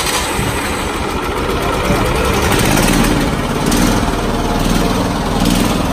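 Single-cylinder petrol engine of a walk-behind mini tiller running steadily just after an electric-key start, on choke with the throttle part open. It gets slightly louder after about two seconds.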